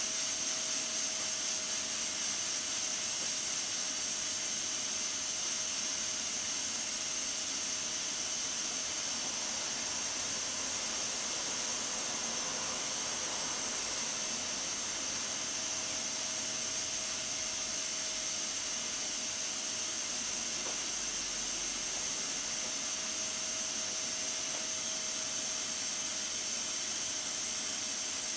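Aluminium pressure cooker up to pressure, steam escaping steadily from its weighted pressure valve: a continuous hiss with a faint, constant whistle tone under it.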